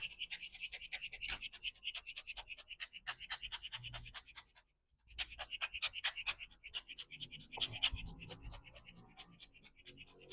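Rapid scratching strokes, about five or six a second, as waste toner is cleaned out of the cleaning-blade area of a Canon iR3245 copier's drum unit. The strokes pause briefly about halfway through, then resume.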